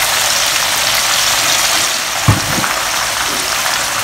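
Long beans deep-frying in hot oil in a wok, sizzling steadily, with one low knock about two seconds in.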